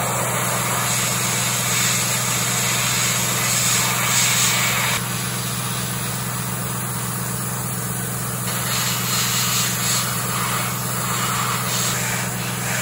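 Airbrush spraying primer onto a plastic model ship hull: a steady hiss of air and paint that eases a little about five seconds in and picks up again near nine seconds, over a steady low hum.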